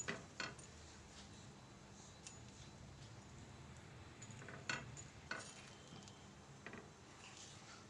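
Faint, occasional clicks and taps of a spatula against a tawa (flat griddle) as a sandwich toasting on it is pressed and turned, over a low steady hiss.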